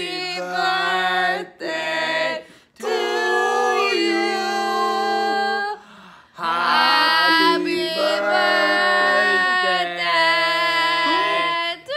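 Several voices, men's and a woman's, singing together without accompaniment, holding long notes in phrases with short breaks between.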